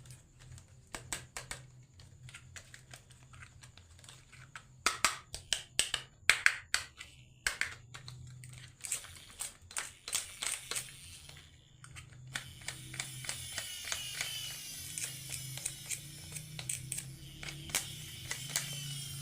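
Marbles clicking and knocking on a wooden marble run: scattered sharp clacks at first, then from about twelve seconds in a steady rolling rattle with many quick clicks as marbles run down the track.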